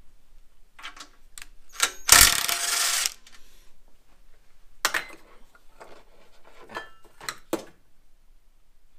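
A cordless drill runs for about a second, backing out a screw from the engine's sheet-metal shroud. Before and after it come scattered sharp clicks and knocks of metal parts and tools being handled.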